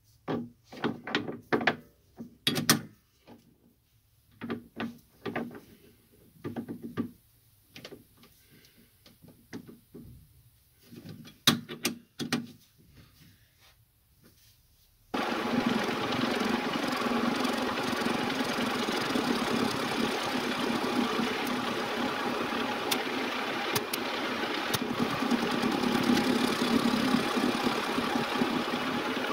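Metal clicks and knocks of a chuck key turning in a lathe chuck as a square block is clamped between the jaws. About halfway through, the lathe switches on and runs steadily with the chuck spinning.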